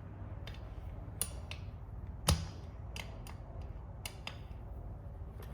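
Scattered small sharp clicks and taps of metal parts and tools being handled while the rear brake disc's screws are refitted, about eight in all, the loudest a little past two seconds in.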